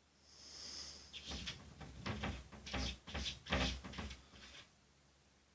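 Wooden cupboard door knocking and rattling in a run of irregular bangs as a cat paws and pulls at it to open it. The loudest knock comes about three and a half seconds in, after a soft hiss near the start.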